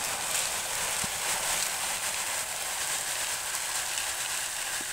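Soy-fibre cat litter, small thin cylindrical pellets, pouring from its bag into a plastic litter tray: a steady hiss of many pellets landing.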